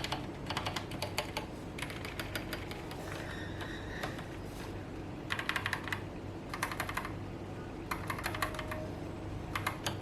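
Akko 3108 mechanical keyboard with stock Gateron Yellow linear switches and OSA-profile doubleshot keycaps being typed on. The keystrokes come in quick bursts of several clicks with short pauses between, over a low steady hum.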